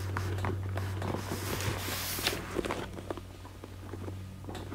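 Handling noise of hands tucking wires into a motorcycle helmet's fabric liner: soft rustling and scattered small clicks and taps, with a burst of rustling about two seconds in, over a steady low hum.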